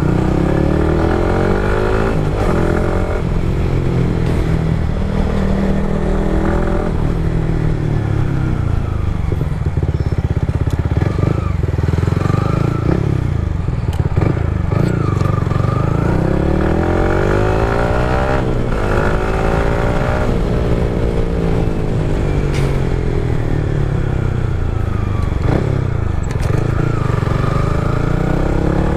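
Yamaha MT-15's single-cylinder engine running through an aftermarket Akrapovič-replica full-system exhaust while riding, the revs rising and falling again and again as the bike speeds up and changes gear.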